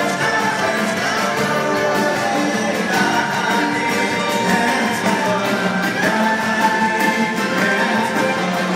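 Live band music with singing, amplified through a PA in a large hall, with a steady beat.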